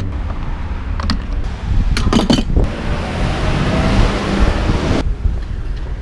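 Car being refuelled at a petrol pump: a few clicks and knocks from the fuel flap and nozzle, then a steady hiss of petrol flowing into the tank that stops suddenly about five seconds in. Low wind rumble on the microphone underneath.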